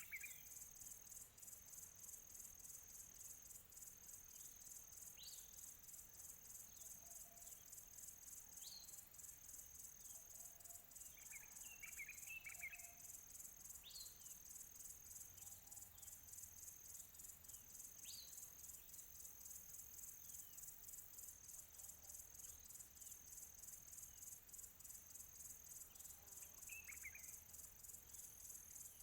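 Faint crickets chirping in a steady, fast-pulsing high trill, with distant birds calling over it: short falling whistles every few seconds, and brief clusters of twittering notes around the middle and again near the end.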